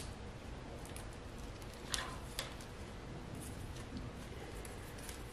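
Faint handling of a paper card as fingers press copper tape down onto it, with two short soft rustles about two seconds in over low room noise.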